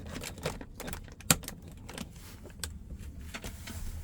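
Irregular clicks, knocks and rustles of a plastic dehumidifier condensation bag being handled and hooked up by its handle, with one sharper knock about a second in.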